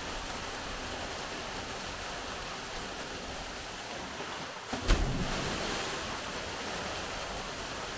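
Steady rush of falling and flowing water, with a single sharp thump a little before halfway through.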